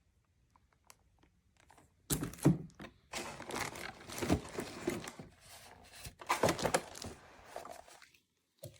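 A run of irregular thumps and knocks in a small room, starting about two seconds in and dying away near the end.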